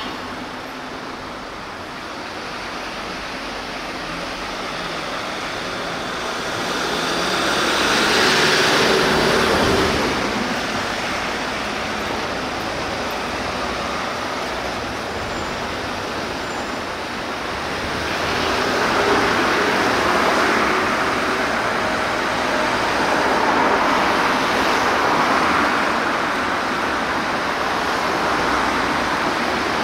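Road traffic passing: a steady hiss of vehicle and tyre noise that swells as a vehicle goes by about eight seconds in, and swells again as more vehicles pass from about eighteen seconds on.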